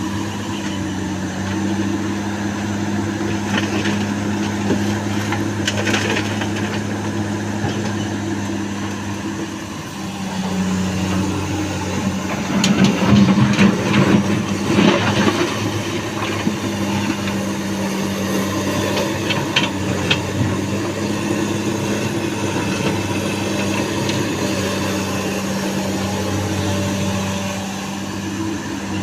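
Komatsu hydraulic excavator's diesel engine running steadily under load, with a burst of loud crunching, clattering impacts about halfway through as sandstone is scooped and loaded, and a few sharper knocks around it.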